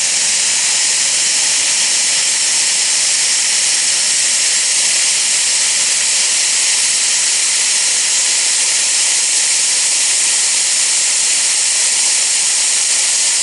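Loud, steady hiss of steam escaping from a 7-1/4 inch gauge live steam locomotive, with no chuffing beat.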